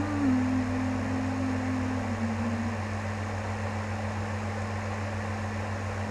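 A woman humming one held note for about three seconds, dipping slightly in pitch and breaking up near the end, over a steady low hum and hiss.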